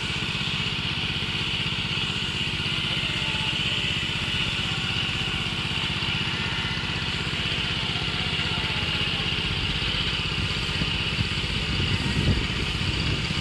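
Small engine of a Bartech PM100 motorized sprayer running steadily while it sprays Bordeaux mixture, with a constant hiss over it. A brief louder low rumble comes near the end.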